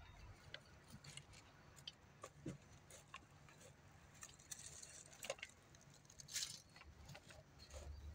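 Faint, scattered small clicks and rustles of a pet cat moving about and playing, with one louder click about six seconds in.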